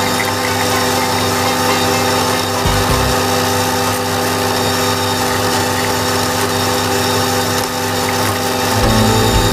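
Tractor diesel engine and a PTO-driven flail mower running steadily under load while cutting grass, a constant drone with the whirring of the rotor and its flails. A brief low thud comes about three seconds in.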